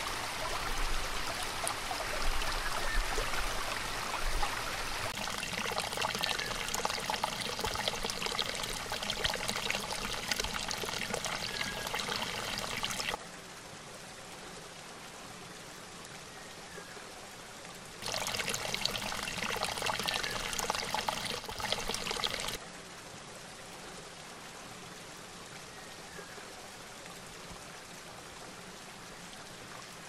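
Water of a small spring-fed mountain stream running and splashing over rocks. The flow is loud at first, drops abruptly to a quieter steady flow about 13 seconds in, comes back loud for a few seconds around 18 seconds, then drops to the quieter flow again.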